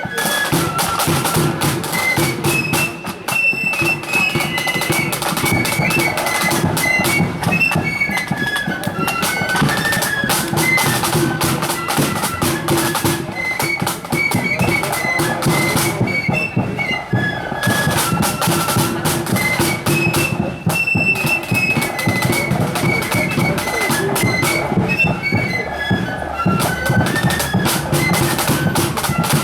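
Marching accordion band playing a tune: accordions carry the melody over sustained chords, with drums beating time.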